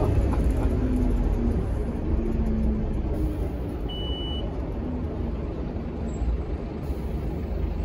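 Scania K230UB diesel bus heard from inside the saloon: a steady low engine and road rumble as the bus drives along, easing off a little partway through and picking up again near the end. A short high beep sounds about four seconds in.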